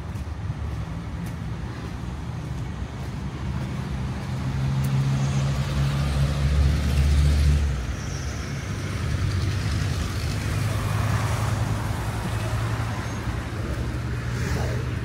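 City road traffic, with a motor vehicle's engine droning close by. It swells to its loudest about five to seven seconds in, fades, and another engine drone follows.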